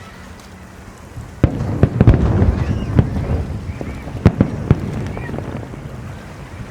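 Aerial fireworks bursting: after a short lull, a run of sharp bangs and cracks starts about a second and a half in, some louder than others.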